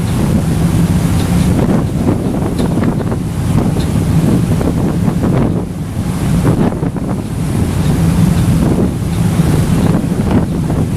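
Wind buffeting the microphone on a moving passenger ferry, over the steady low drone of the ferry's engine and the rush of water along the hull.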